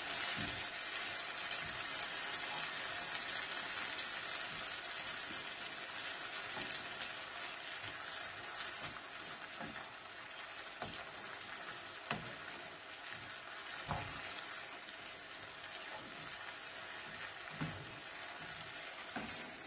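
Arborio rice and leeks sizzling in a frying pan of stock on a gas hob while being stirred with a wooden spoon, the stock being cooked into a risotto. The sizzle slowly grows quieter, with a few soft knocks of the spoon against the pan.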